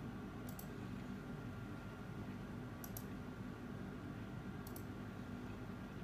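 Computer mouse button clicked three times, each a quick pair of clicks, over a steady low hum.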